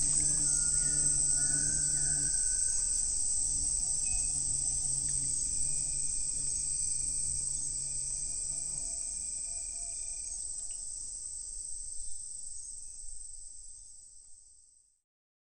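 Crickets trilling steadily, with a faint low hum underneath that stops partway through. The whole sound fades out gradually, then dies away quickly to silence just before the end.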